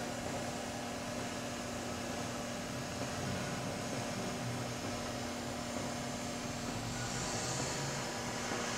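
RMT S-FAB PDM 17-24 double-miter bandsaw running a cut cycle: a steady machine hum under a faint hiss. A higher hiss joins about seven seconds in.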